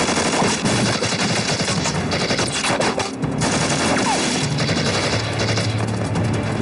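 Heavy gunfire from rifles, shots overlapping in a dense, continuous volley with a brief lull about three seconds in.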